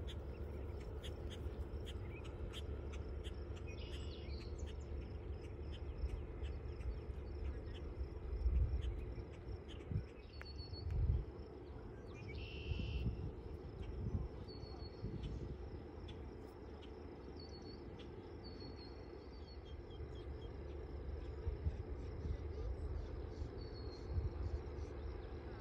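Outdoor ambience: a steady low rumble that swells briefly twice, with a few short high chirps scattered through it.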